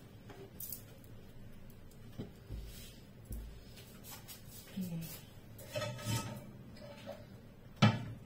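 Kitchen handling sounds: a cloth rustling and scattered light knocks and clicks, then one sharp knock near the end as cookware is handled at the gas stove.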